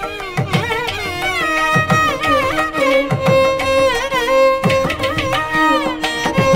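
Carnatic violin playing an ornamented melody in raga Vachaspathi, its notes sliding and bending between held pitches, over mridangam and ghatam percussion.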